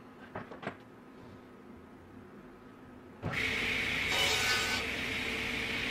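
A few light knocks of a wooden board being set down and moved on a steel table, then about three seconds in a woodshop machine switches on abruptly and runs steadily with a high whine.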